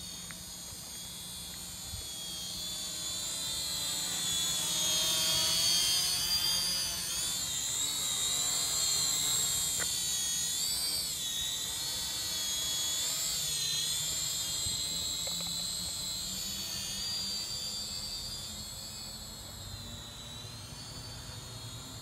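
Small red toy quadcopter's electric motors and propellers whining, the pitch wavering up and down as the throttle changes. It grows louder as the drone hovers close and fades near the end as it climbs away.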